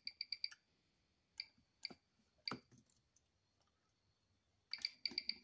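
Ticking of a mechanical watch movement, a Miyota 9015, picked up by a timegrapher microphone: fast, even ticks about eight a second. The ticking stops about half a second in as the watch is lifted off, a few handling clicks and knocks follow, and fast ticking starts again near the end as the next watch is set on the stand.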